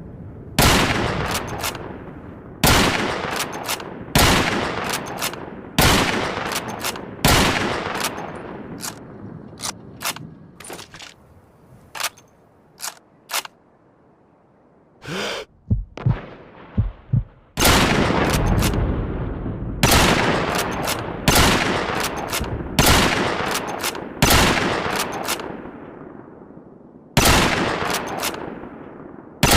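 Lee-Enfield bolt-action rifle shots fired one after another, about every one and a half to two seconds, each with a long echoing tail. In the middle the shots thin out to a run of lighter, shorter cracks and clicks with a brief lull, then the full shots resume.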